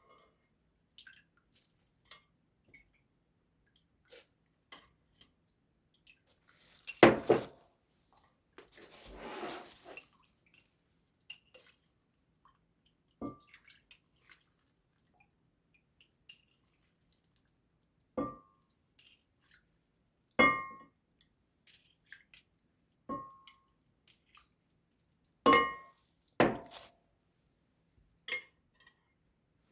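Kitchen clatter of dishes and utensils while soup is portioned out: scattered light clinks, a louder knock about seven seconds in, a brief splash of liquid soon after, and several ringing taps of a utensil on a pot or container later on.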